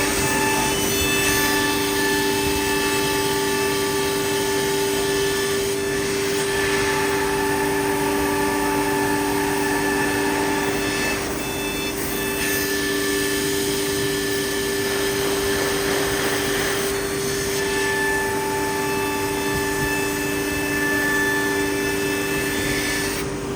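CNC nesting router running under test: a steady low machine hum with a higher whine that comes and goes in stretches of about five seconds, each separated by a short break.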